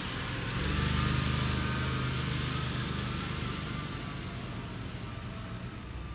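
Engine of a John Deere Gator utility vehicle driving past, swelling about half a second in, loudest a second or two in, then fading away.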